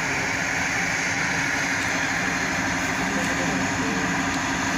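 A heavy engine running steadily with a constant hum, under indistinct background voices.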